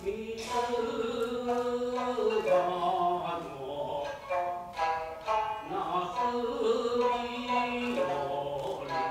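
Traditional Japanese puppet-theatre music: a chanter sings the narration in long, held, sliding notes over plucked shamisen notes.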